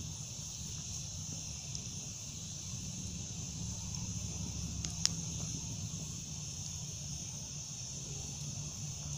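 Steady high chorus of crickets over a burning wood campfire, with one sharp crackle from the fire about five seconds in.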